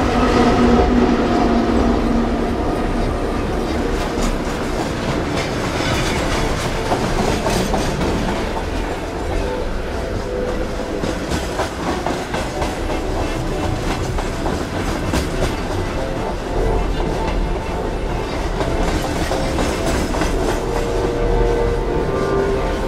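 A passenger train running past at speed, a steady rumble of its wheels with a constant clatter of clicks over the rail joints.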